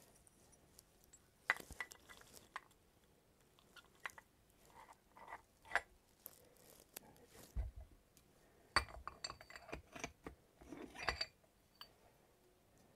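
Light metallic clinks and clicks of small SU HIF44 carburettor parts and screws being handled and fitted during reassembly, scattered and irregular, with a busier run of louder clinks about nine to eleven seconds in.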